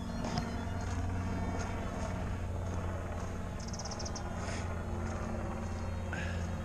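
Helicopter flying slowly, a steady low hum. A short run of high chirps about halfway through.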